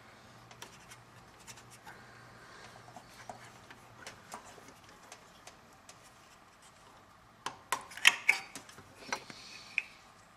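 Light clicks and taps from hands handling electrical wires and small crimp connectors, with a short run of louder clicks about eight seconds in.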